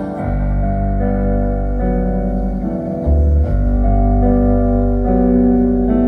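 Live band music: piano playing held chords that change about once a second over low bass notes, with no singing.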